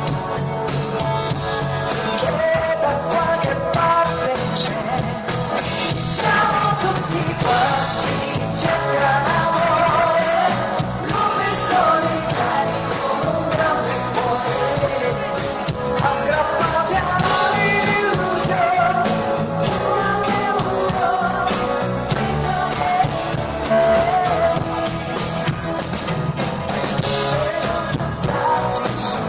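Live band playing a pop-rock song with a woman singing over it, amplified, at a sound check.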